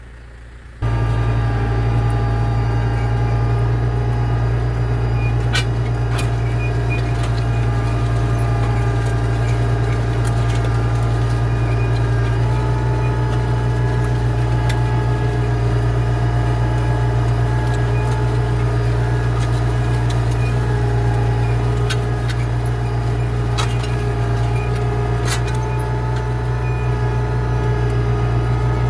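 Tractor engine running steadily while pulling a disc harrow across a field: a constant low drone that starts abruptly about a second in, with a few faint clicks.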